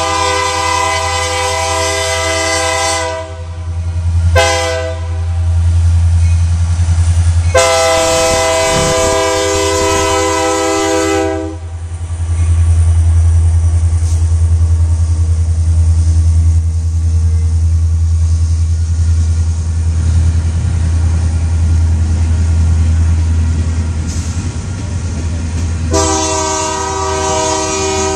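Union Pacific diesel freight locomotive sounding its multi-tone horn: a long blast, a short blast and another long blast, then a further blast near the end. Between the blasts the locomotive passes with a steady deep engine rumble, and the train's cars roll by on the rails.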